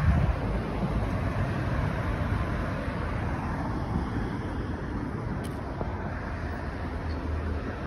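Road traffic on a city street: cars and a bus passing, a steady rumble of engines and tyres, with a low engine hum in the last few seconds.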